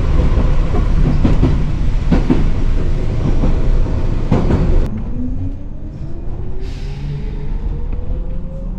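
One-car electric train running on the rails, heard from inside: a loud rumble with a few knocks of the wheels over rail joints. About halfway through it cuts to a quieter run in which the traction motor's whine rises steadily in pitch as the train picks up speed.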